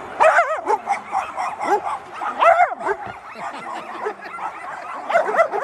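Several dogs yipping, barking and whining over one another, short high yelps at different pitches overlapping throughout, with a cluster of louder yelps about half a second in and again about two and a half seconds in.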